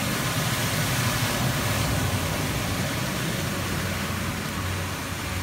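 A car driving through deep floodwater on a street, its tyres throwing up a heavy spray: a steady rushing splash over a low vehicle rumble.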